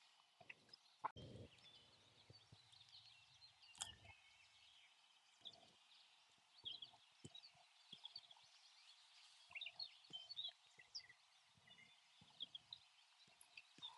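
Near silence: faint outdoor background with many small, short chirps and scattered soft clicks, and a sharper click about a second in and another about four seconds in.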